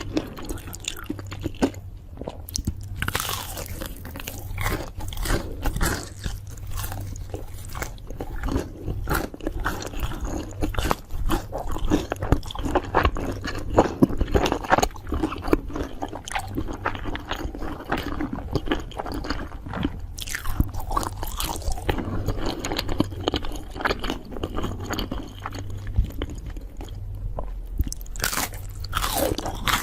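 A person biting and chewing crunchy food close up: a dense, irregular run of crunches and clicks.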